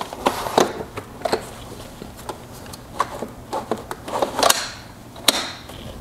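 Hard plastic knocks, scrapes and clicks as the Roborock S6 Pure robot vacuum's water tank and mop mount are slid under the robot and clipped onto its underside, with two louder clicks near the end.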